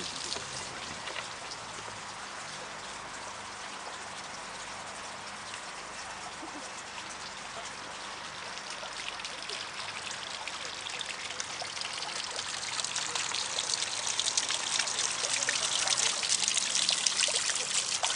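Running water trickling and splashing, a steady rush that grows louder over the last several seconds.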